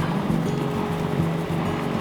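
A sailboat's engine running steadily under way, a low even drone with a regular pulse, with background music playing over it.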